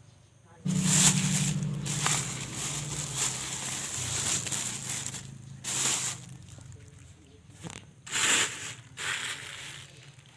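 Dry crackling and rustling in several surges, as of dry corn stalks, leaves and husks being handled, over a low steady hum; it starts abruptly under a second in.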